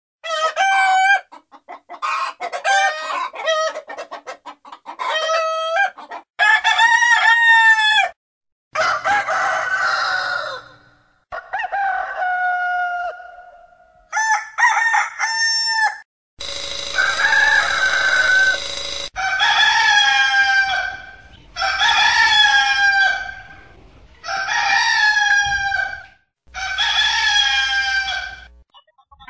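Rooster crowing over and over: about a dozen separate cock-a-doodle-doo calls, each one to three seconds long, with short gaps between them.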